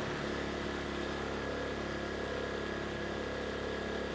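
Erayak 4500PD inverter generator's 150 cc engine running steadily with the load taken off, letting it cool down.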